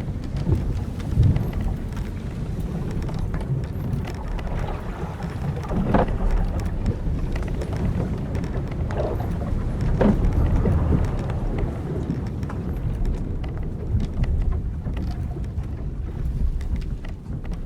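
Timbers and ropes of an old wooden sailing ship creaking over a steady low rumble of wind and sea. A few louder creaks stand out around the middle.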